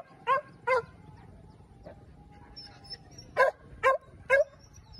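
Hunting dog barking: two quick barks at the start, then a pause, then three more barks about half a second apart.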